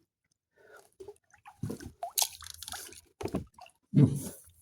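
A kayak paddle dipping and splashing in the water in several uneven strokes, with some low knocks among them, loudest near the end.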